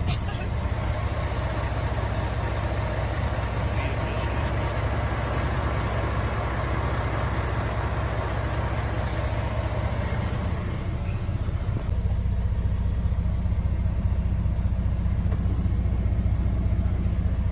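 Log truck's diesel engine running steadily, heard from inside the cab. About twelve seconds in the sound changes: the low engine drone gets louder and the hiss above it drops.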